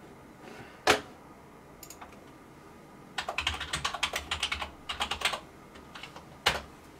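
Typing on a computer keyboard: a quick run of keystrokes lasting about two seconds, with a single sharp click about a second in and another near the end.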